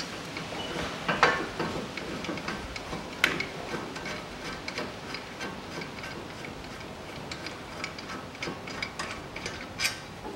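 Irregular metallic clicks and ticks of a wrench working the 17 mm caliper bracket bolts loose on a front steering knuckle, with a few sharper knocks among them.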